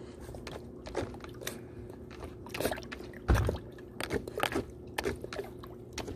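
A Beagle-Chihuahua mix dog biting and snapping at bubbles in a plastic tub of water: irregular wet splashes and mouth snaps, with one louder thump a little past the middle.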